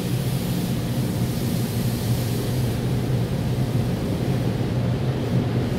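Automatic car wash heard from inside the car: water spraying onto the windshield over a steady low hum of machinery. The high spray hiss eases about three seconds in.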